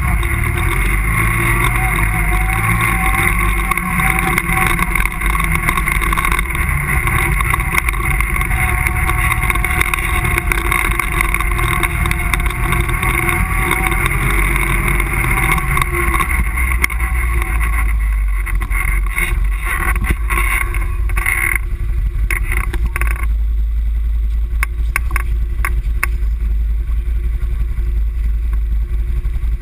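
ATV engine running under way along a dirt trail, with a constant low rumble. About two-thirds of the way through the engine note drops, with some rattling, and it settles to a low idle as the machine comes to a stop.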